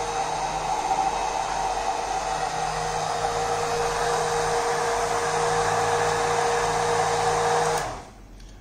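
Electric hand blender running steadily, its blade whirring in a tall plastic beaker of liquid coffee mix. The motor switches off shortly before the end.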